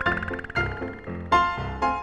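Background music: a light tune of ringing notes, about two a second, each fading before the next.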